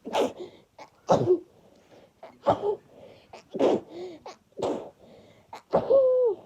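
A person sneezing over and over in a fit, about six sneezes roughly one a second, the last one longer with a falling voiced sound.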